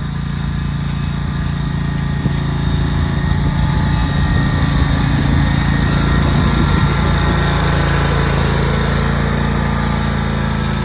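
Riding lawn mower's small engine running steadily while mowing, growing a little louder over the first few seconds.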